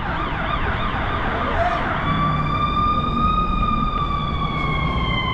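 Ambulance siren on an emergency run: a fast warbling yelp for about two seconds, then a long steady wail that slowly falls in pitch, over low traffic rumble.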